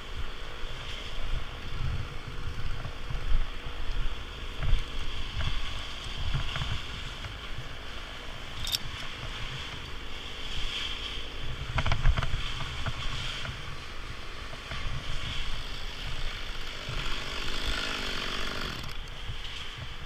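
Wind buffeting a helmet camera's microphone in gusts, with the rustle and scrape of a climbing rope being pulled through gloved hands. A single sharp click a little before halfway.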